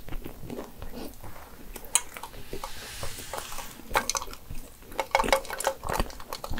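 Iced coffee sipped through a straw, close to the microphone, with ice cubes clinking in the glass as it is lifted; short mouth clicks and swallows between sips.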